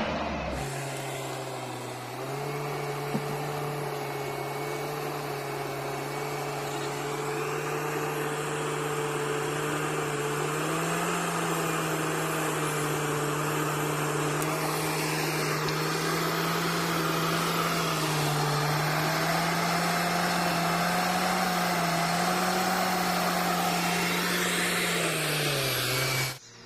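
A motor on an off-road 4x4 running steadily with a high hum. The pitch steps up and down slightly a few times and holds in between.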